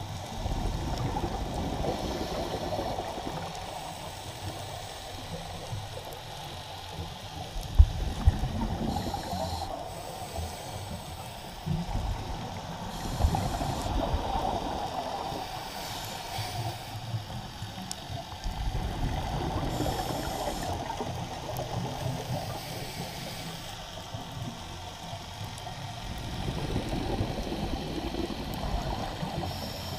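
Scuba diver's regulator breathing heard underwater through a camera housing: exhaled bubbles gurgle in louder spells every five or six seconds over a steady wash of water noise. Two sharp knocks come about eight seconds in.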